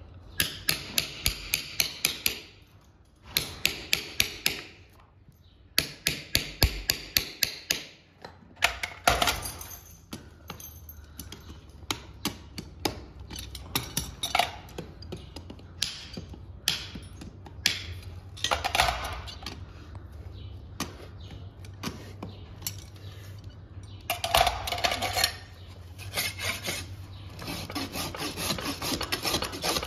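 A farrier's hammer striking in quick runs of about four blows a second, with short pauses between runs, followed by a hoof rasp filing the hoof in repeated strokes.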